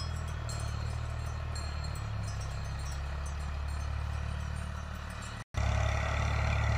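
Ghazi tractor's diesel engine running steadily under load while pulling a disk harrow through the field. It cuts out for an instant about five and a half seconds in, then comes back closer and louder.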